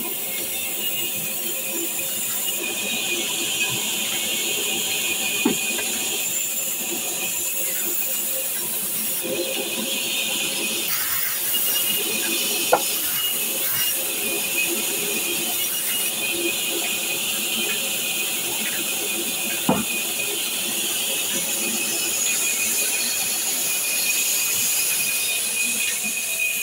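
Belt-driven band saw mill running and cutting timber: a steady high hiss and whir, with three sharp clicks spread through it.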